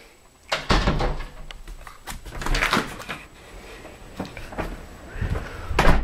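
A door being opened and shut, with several knocks and rustles; the sharpest knock comes near the end.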